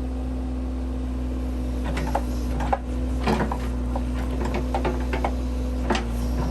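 Case 580C backhoe engine running steadily under work, with irregular knocks and clanks from the machine from about two seconds in.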